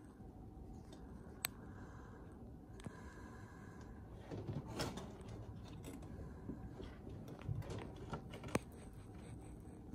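A kitten moving under a low wooden cabinet and out onto a rug over a hardwood floor: soft rustling and shuffling with a few sharp light clicks spread through, in a quiet room.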